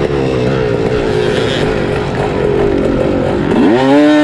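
Sherco 300 SE-R two-stroke dirt bike engine running under load, its revs rising and falling, then climbing sharply near the end and holding high.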